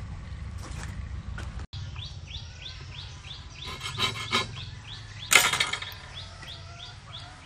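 A bird repeating short falling chirps, about three a second, over a low steady outdoor hum. A little past halfway comes one loud metal clatter, a steel caliper set down on a large steel saw blade, preceded by a couple of light clicks.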